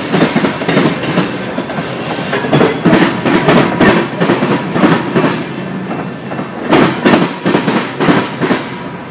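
Freight train's covered hopper cars rolling past at close range, their wheels clacking over the rail joints and crossing in repeated bunches. The clacking thins out and the sound drops away near the end as the last car clears.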